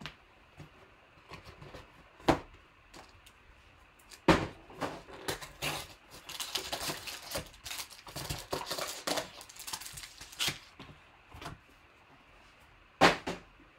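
Cardboard trading-card box being opened and its foil-wrapped card packs pulled out, with crinkling foil and rustling through the middle. A few sharp knocks of cardboard and packs on the table stand out: one about two seconds in, one about four seconds in and one near the end.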